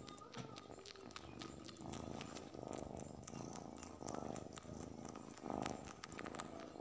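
A tabby kitten purring steadily while it licks and mouths a cloth, the purr swelling every second or so, with many small clicks of its tongue on the fabric.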